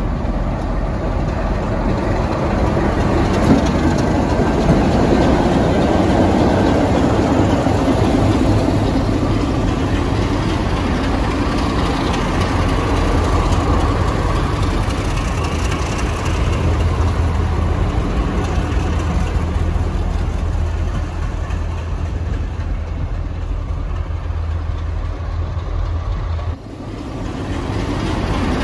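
Diesel locomotives on the move: a Class 33 'Crompton' with its Sulzer eight-cylinder engine and two Class 35 'Hymeks' with Maybach sixteen-cylinder engines, running as they pass slowly close by. Steady engine noise, with a deep hum that grows stronger about halfway through; the sound drops out abruptly near the end and then comes back.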